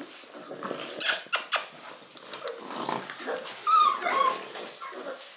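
Six-week-old Shar-Pei puppies playing and growling, with three sharp knocks about a second in and a short high yelp about two-thirds of the way through.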